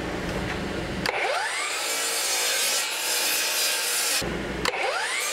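DeWalt sliding compound miter saw spinning up with a rising whine and crosscutting a glued pallet-wood panel, with a hissing cut. A low steady rumble comes first, and the saw starts up again near the end.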